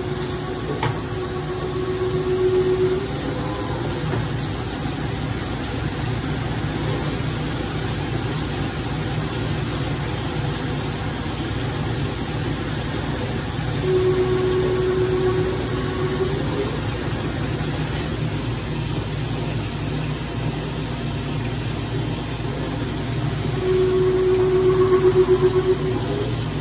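CNC vertical milling machine cutting a long bar under flood coolant: steady spindle and machining noise with coolant hiss. A steady pitched note sounds over it three times, each for two to three seconds, and the noise grows louder each time.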